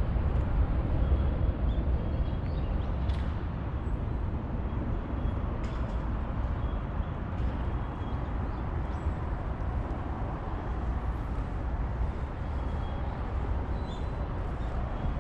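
Steady outdoor ambience with a low rumble, and a few faint, short high chirps scattered through it.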